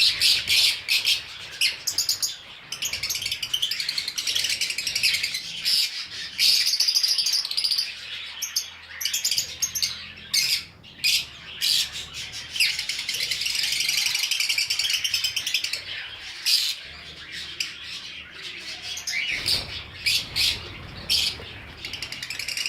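Many caged pet birds chirping and chattering together, a dense, continuous mix of short high calls and rapid trills that swells and fades.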